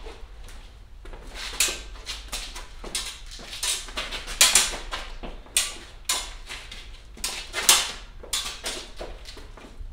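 Fencers' shoes scuffing and slapping on a bare concrete floor as they step and lunge, a dozen or so sharp irregular scrapes.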